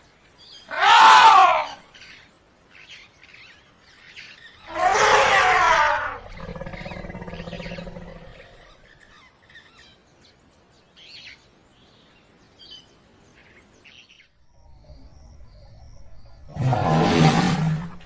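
African elephant trumpeting: three loud calls, each about a second long, about a second in, around five seconds in and near the end. The middle call trails off into a lower rumble lasting about two seconds.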